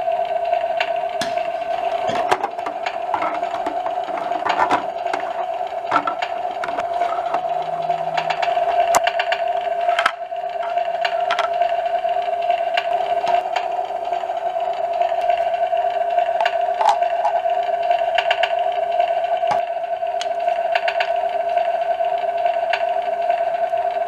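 Battery-powered toy barbecue grill playing its electronic sound effect through a small, tinny speaker: a steady buzzing hum that breaks off briefly about ten seconds in. Light clicks of plastic toy food, plate and tongs being handled.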